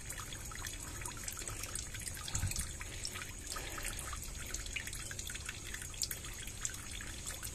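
Shallow water trickling and dripping among the stones of a small ditch, with many small irregular drips.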